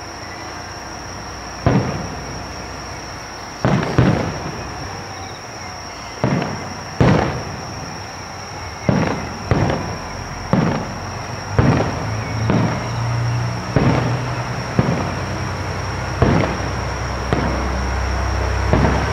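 Fireworks shells bursting overhead: more than a dozen sharp booms at irregular intervals, each trailing off in a rolling echo. From about twelve seconds in, the low engine hum of a Joso Line diesel railcar rises beneath them as the train pulls out.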